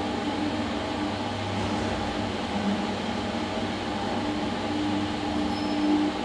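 SMW traction elevator car riding up with a steady hum and a low drone from the machinery, then arriving at the ground floor, with the doors sliding open near the end.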